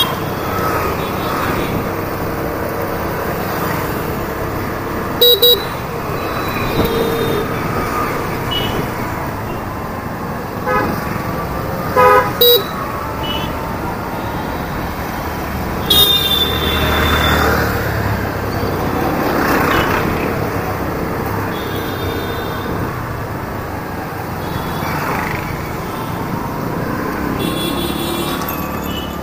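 Hero Destini 125 FI scooter's single-cylinder engine running while riding through city traffic, with vehicle horns sounding in short toots several times, the loudest about sixteen seconds in.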